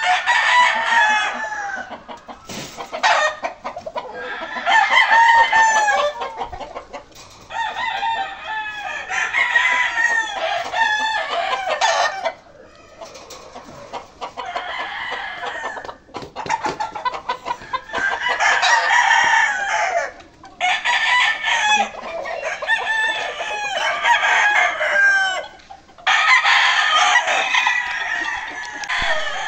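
Several gamecocks crowing over and over, one call after another, each crow lasting a second or two with short gaps between, some overlapping.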